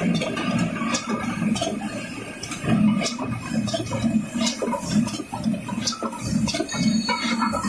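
A conical pail palletizing line running: the conveyor and steel pails give an uneven rumble and rattle, broken by frequent short hisses and clicks from the air cylinders.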